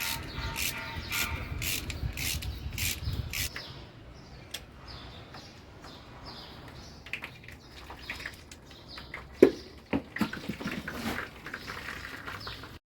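Hand-tool work on metal: a run of clicks in the first few seconds, then scattered clicks and one sharp knock about nine and a half seconds in.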